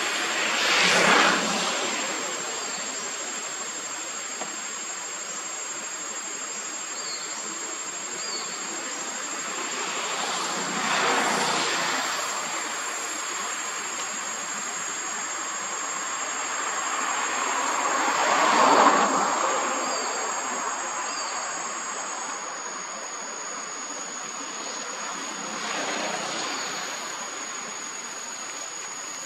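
Insects shrilling steadily on a high, even pitch over a constant outdoor hiss. A broad rushing sound swells up and fades away four times, each time for a couple of seconds, about every eight seconds; the third swell is the loudest.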